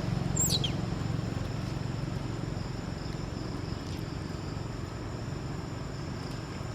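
Insects droning steadily on two high tones, with one short, sharply falling high-pitched call about half a second in, over a low rumble that slowly fades.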